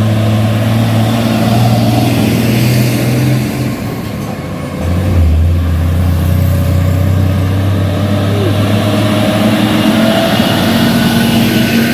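Heavily loaded Hino diesel truck labouring up a climb, its engine running steadily under load. Just before four seconds in, the engine note drops away briefly. At about five seconds it comes back lower and heavier.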